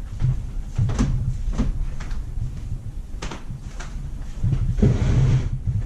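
Sharp clicks and knocks of a small metal part being handled, then a hiss about a second long near the end: carb cleaner sprayed from an aerosol can to wash out an outboard carburetor body.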